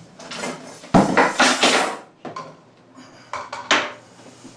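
A knock against the table about a second in, then a cobra's hiss lasting about a second, with a second, shorter hiss near the end: a defensive spitting cobra huffing while it is restrained.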